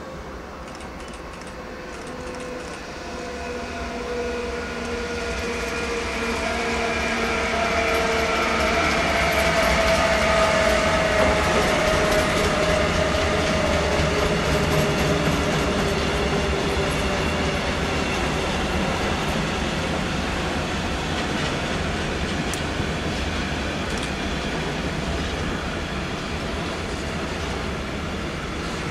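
Electric freight train with a DB locomotive approaching and rolling past, growing louder over the first ten seconds, with a whine that slowly falls in pitch as the locomotive passes. Then the steady rumble and wheel clatter of a long train of freight wagons going by.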